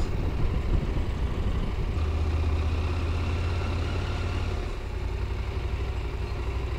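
Husqvarna Norden 901's parallel-twin engine running at low speed as the motorcycle rolls slowly, its note dropping lower a little before the end as the bike slows further.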